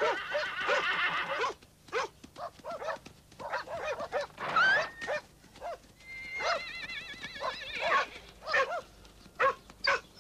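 Feral dogs barking and yelping in quick, excited succession as they harass horses. About six seconds in, a horse whinnies with a long, quavering call.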